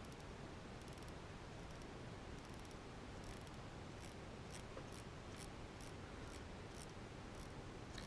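Faint, light clicks of a rotary encoder's detents as its knob is turned back and forth by hand, coming about two a second in the second half.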